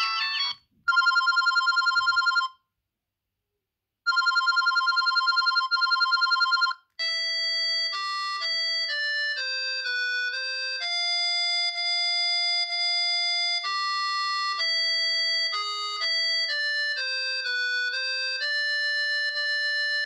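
Doro HandlePlus 324 GSM mobile phone playing ringtone previews through its small speaker as its ringtone list is stepped through. A warbling two-tone trill ring sounds twice with a short pause between. From about seven seconds in comes a plain electronic melody, one note at a time.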